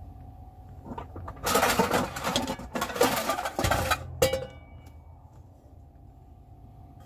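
Pots and pans clattering as a frying pan is taken out and handled. The clatter starts about a second and a half in, lasts about three seconds, and ends with a brief metallic ring.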